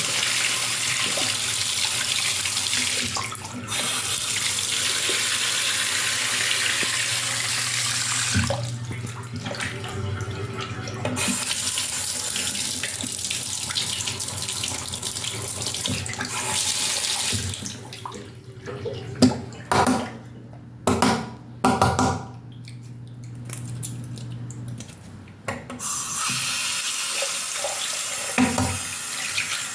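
Tap water running into a sink while a washing machine part is rinsed, the flow breaking off briefly a few times. In the second half the water goes quieter and several sharp knocks come, then the tap runs fully again near the end.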